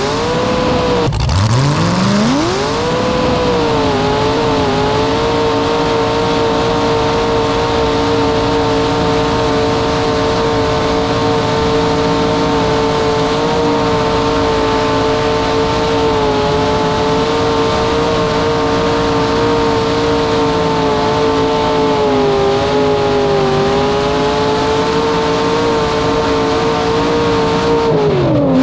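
LS V8 of a 1940 pickup rat rod revving up hard, dipping once and climbing again, then held at high, nearly steady revs through a long burnout with the rear tires spinning in thick smoke. The revs sag briefly late on and drop right at the end.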